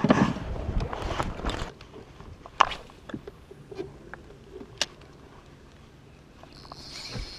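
Water rushing and splashing against a bass boat's hull, loud for the first second and a half and then settling. A few sharp knocks follow, and a high steady whine comes in near the end.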